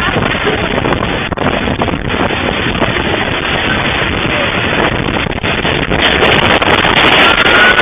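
Storm wind gusting hard across the microphone, a loud steady rush that grows stronger about six seconds in.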